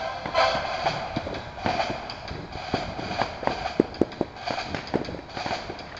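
Firecrackers and fireworks going off: irregular sharp pops and cracks of varying loudness, a few each second.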